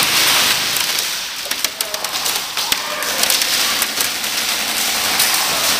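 Airsoft gunfire: a dense run of sharp clicks and taps, thickest about one and a half to three seconds in, over a steady hiss.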